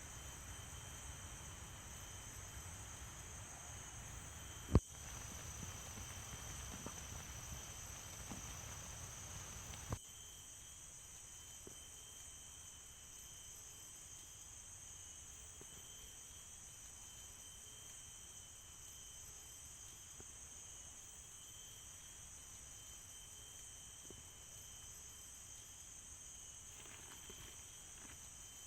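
Steady chorus of forest insects, a constant high-pitched trilling. A single sharp click about five seconds in, the loudest sound, and a smaller one about ten seconds in.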